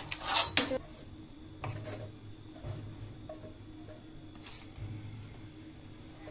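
Scraping and knocking in a metal frying pan as cooked rice-flour dough is emptied out onto a plate. There are several loud scrapes in the first second, then softer scrapes every second or so.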